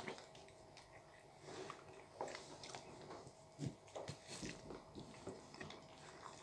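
Two people biting and chewing soft baked curry buns straight off their plates without using their hands: faint, short and irregular eating sounds.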